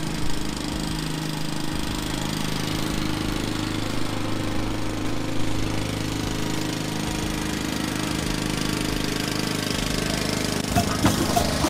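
Honda 21-inch walk-behind mower's single-cylinder four-stroke engine running steadily as it cuts grass. Near the end it gives way to drumming from a street band.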